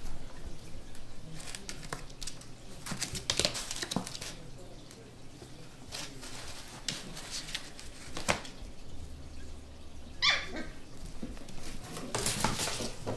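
Shetland sheepdog puppies playing rough on a tile floor, with scattered knocks and scuffles throughout. One short, high puppy bark comes about ten seconds in.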